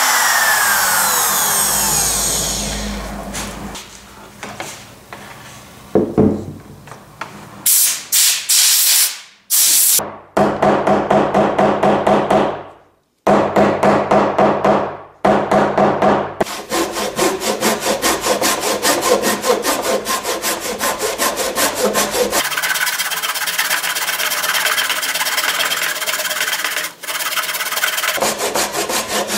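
Makita trim router motor spinning down, its pitch falling and fading after it is switched off. It is followed by short, clipped bursts of hand work, then a hand saw cutting wood with rapid back-and-forth strokes as the dark bow-tie inlay is sawn down flush with the board.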